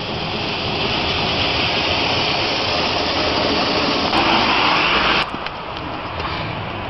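A steady rushing hiss that swells a little and then cuts off suddenly about five seconds in, leaving a lower, fainter noise.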